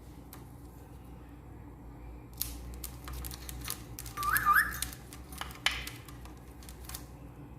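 A parrot gives a short whistle of two quick rising notes about halfway through, among scattered clicks and rustles.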